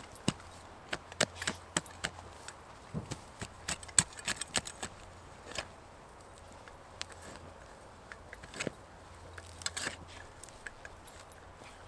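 Folding shovel digging into stony soil: a run of sharp scrapes and knocks as the blade strikes earth and stones. They come thick for the first five seconds or so, and there is another cluster near the end.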